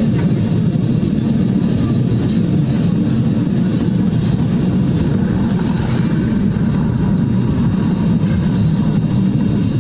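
Vintage open tram rolling along street rails: a steady low rumble of wheels and running gear.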